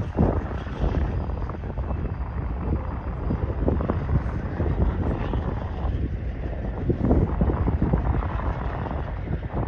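Union Pacific diesel-electric freight locomotives working at heavy throttle as they move away, a steady low engine rumble.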